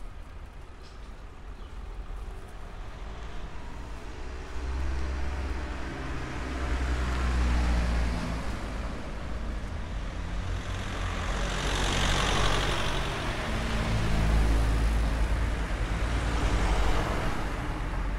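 Street traffic: motor vehicles passing close by, with a low engine hum and tyre noise that swell twice in the second half as they go past.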